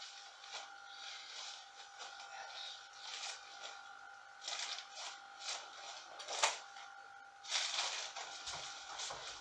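Clear plastic raincoat crinkling and rustling as the wearer moves their hands over it, in a string of short crackles with one sharp crackle about two-thirds through and a longer rustle near the end. A faint steady hum sits underneath.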